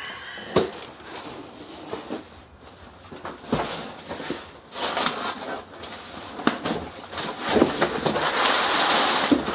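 Cardboard box being handled and opened: knocks, scrapes and flap noises from the cardboard, then crumpled kraft packing paper rustling loudly near the end as hands dig into it.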